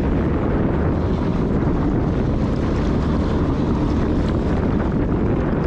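Strong wind buffeting the microphone, a steady low rumble, with choppy lake water lapping against a concrete wall.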